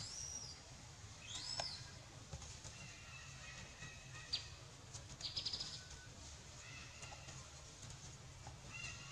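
High, thin animal calls: two short rising-and-falling chirps in the first two seconds, a sharp click and then a quick rattling trill around the middle, and a few faint held whistled notes later on.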